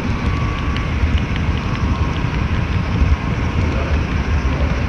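HO-scale model train running along the track, heard through a camera riding on a flatcar: a steady low rumble with a few faint ticks.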